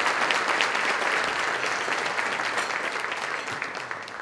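Audience applauding, a dense patter of many hands clapping that slowly fades near the end.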